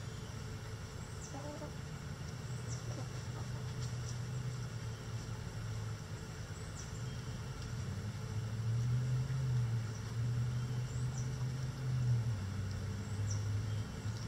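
A low, steady engine drone, growing louder about halfway through and shifting pitch a few times, with brief high bird chirps every few seconds.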